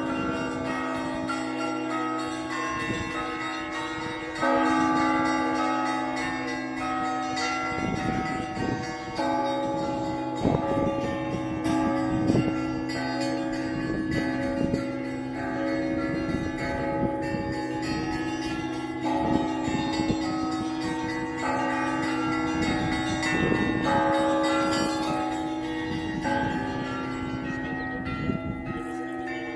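Russian Orthodox church bells pealing. The deep tone of a large bell hangs underneath while many smaller, higher bells are struck in a quick, irregular stream, with a louder stroke about four and a half seconds in.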